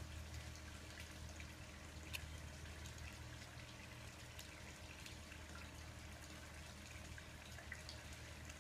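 Faint steady low hum with a few soft clicks and scrapes as a small knife point cuts at the plastic hull of a 12-gauge shotgun shell.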